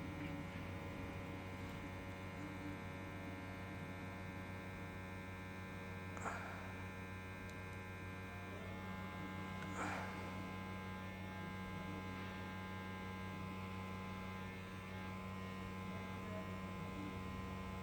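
Hot-air SMD rework station running with a steady electric hum and buzz while the phone's charging jack is heated to solder it into place. Two light clicks come through, about six and ten seconds in.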